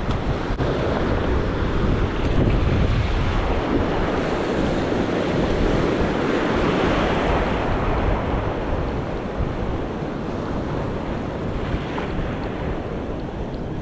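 Small waves breaking and washing up over a sandy beach, with wind buffeting the microphone.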